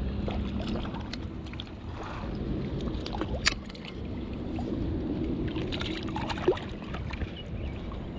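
Creek water sloshing and gurgling, with scattered small clicks and one sharp tick about three and a half seconds in.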